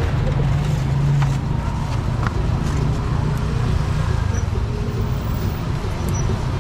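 Street traffic with motor scooter engines running close by: a steady low engine hum, strongest in the first second or so, over a broad roadside noise.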